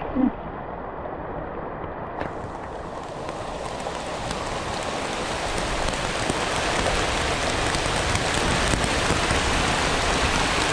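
Heavy rain falling, a dense steady hiss that comes in about two seconds in and grows louder before levelling off. A brief low sound is heard right at the start.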